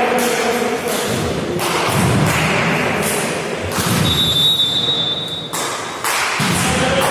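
Thuds of a ball in play in a sports hall, with a steady high tone held for about a second and a half near the middle.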